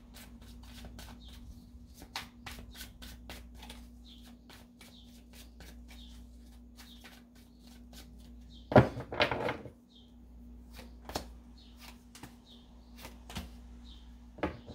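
A tarot deck being shuffled by hand: an uneven run of light card clicks and slaps, with a louder, denser flurry of card flicks about nine seconds in. A faint steady hum lies underneath.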